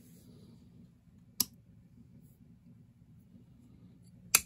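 Two sharp snips about three seconds apart, the second louder: bonsai pruning cutters closing on the small branches of a Brazilian rain tree. A faint steady low hum runs underneath.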